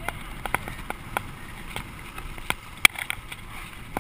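Mountain bike rolling downhill over a cracked concrete-slab track, with irregular knocks and rattles as the tyres jolt over the joints, the sharpest a little before three seconds in, over a steady rush of wind and tyre noise.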